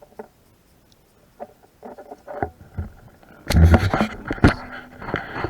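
Handling noise of a plastic wiring connector and its wires close to the microphone: scattered small clicks and taps, then louder rubbing and knocks with low thuds from about three and a half seconds in.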